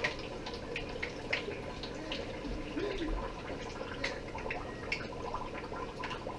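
Hot cooking oil bubbling and crackling in a deep pot as a small flour tortilla fries into a taco shell, with irregular small pops throughout.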